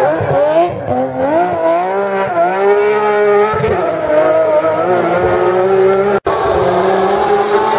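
BMW M3 engine revving up and down under hard driving, with tyres squealing as the car drifts. The sound breaks off for an instant about six seconds in.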